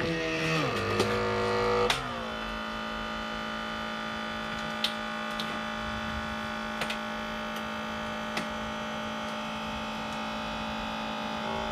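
A motor running with a steady hum. Its pitch changes in steps over the first two seconds, then holds steady, with a few faint clicks.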